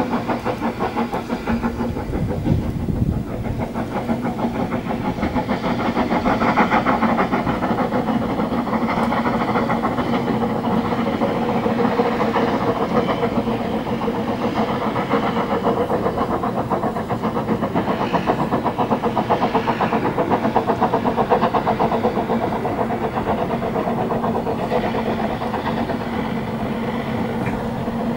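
Narrow-gauge steam locomotive hauling a train, its exhaust beating rapidly and evenly over a steady hum.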